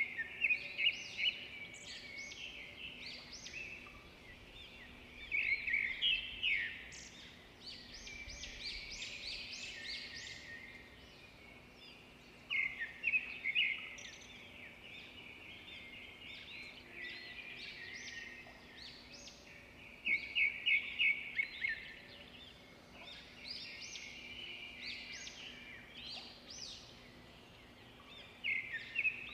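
Songbirds chirping and trilling, with louder bursts of rapid chirps every six to eight seconds.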